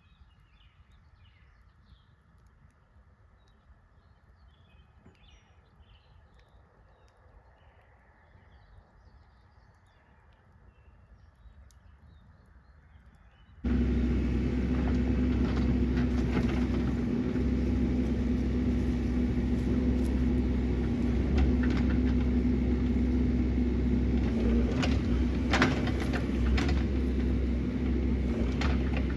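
Quiet woods with faint bird chirps, then about halfway through a mini excavator's diesel engine cuts in loud and steady, running with a constant hum and a few sharp knocks near the end.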